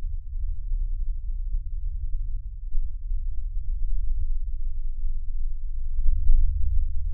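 A deep, steady drone with nothing above the bass, swelling slightly about six seconds in.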